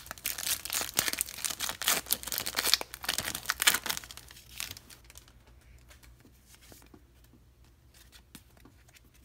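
Wrapper of a three-card Pokémon trading card pack being torn open and crinkled, with dense crackling that stops about halfway through.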